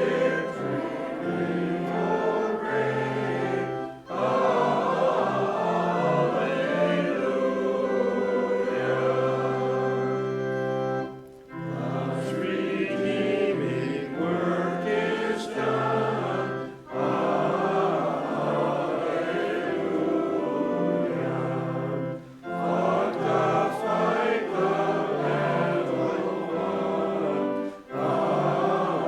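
Hymn singing by a group of voices with accompaniment, in phrases separated by short breaks between lines.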